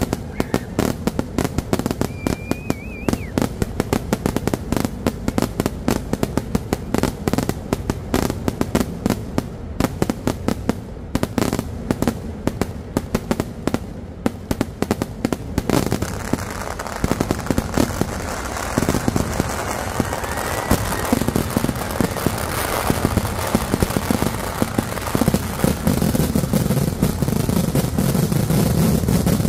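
Kerala vedikkettu fireworks fired from the ground: a rapid, unbroken volley of firecracker bangs. About halfway through it turns into a denser, more continuous crackle that grows louder toward the end.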